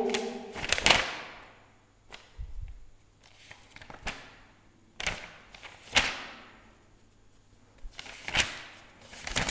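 Pages of a thick book being leafed through: a series of short paper flicks and rustles, about seven over the stretch.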